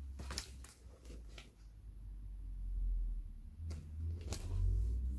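A paper picture book being handled: a few soft paper rustles and taps over a low rumble of handling noise.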